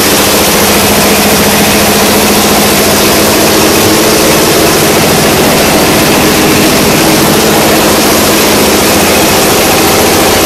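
Kembar Teknika MCB12M clay brick extruder running steadily under load as it pushes out a column of clay, with a constant, loud machine drone.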